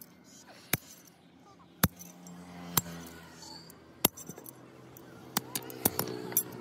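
Hand hammer striking a sickle blade on a steel anvil block: sharp metallic clinks, about one a second at first, then several quicker taps near the end.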